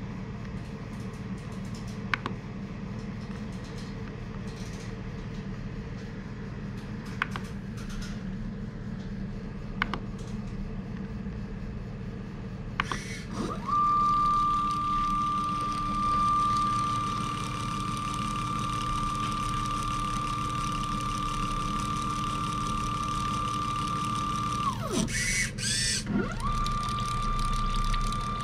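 Small electric pump motor of a homemade colour-mixing dispenser running with a steady high whine, pumping liquid. It starts about halfway through, stops briefly near the end and starts again. Before it there is a steady low hum with a few sharp clicks from the control buttons being pressed.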